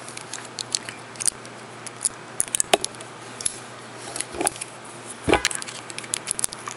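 Plastic nail swatch sticks on a ring clicking against each other and against a glass nail polish bottle as they are handled, in scattered sharp clicks, the loudest a little past five seconds in.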